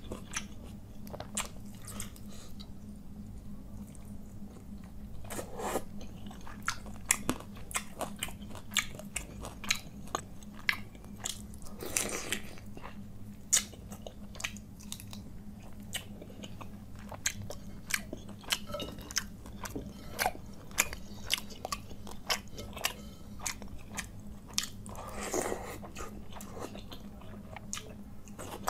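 Close-miked chewing of a mouthful of panta bhat, soaked rice in its water, with many sharp crunches and wet mouth clicks. There are a few longer wet sounds, and fingers squelch through the watery rice in a clay bowl.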